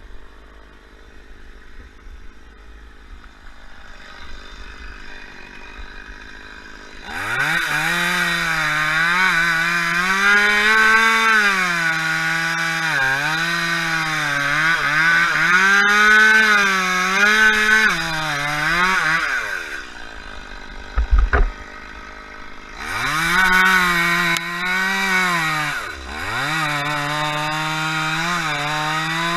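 Two-stroke chainsaw cutting palm trunk at high revs, its pitch sagging and recovering as the chain loads up. It comes in about seven seconds in and drops off near the middle. A heavy thud follows, then it revs back up and cuts again.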